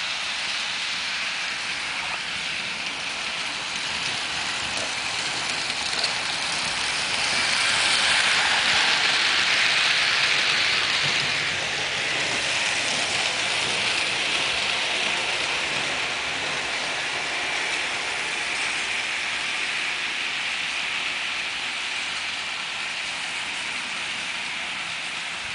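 Märklin model train running on the layout's track: a steady mechanical rattle and hiss of the motor and wheels, growing louder from about seven seconds in as the train comes close, then easing off.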